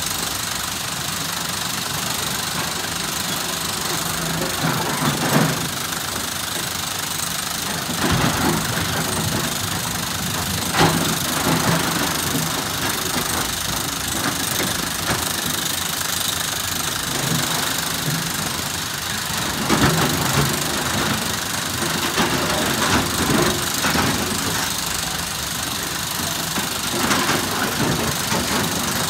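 Diesel engine of a SANY SY365H PRO excavator running steadily, with several louder bouts of knocking and clatter from the machine at work loading stone.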